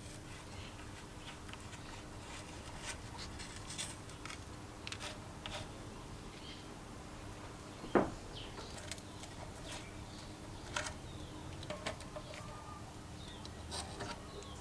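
Scattered light clicks and taps, like small parts being handled at a workbench, with one short, loud squeak about eight seconds in that falls in pitch.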